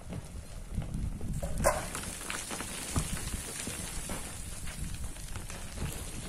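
Loose sand, gravel and stones sliding and falling down a steep quarry face: a steady pattering hiss with the clatter of single stones, and one sharp knock about a second and a half in.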